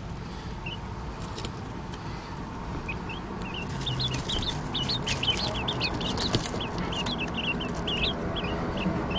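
Quail chicks peeping as they feed, a few short high chirps at first, then a rapid run of them from about a third of the way in. Scattered light clicks come from beaks pecking at the food in the metal tin.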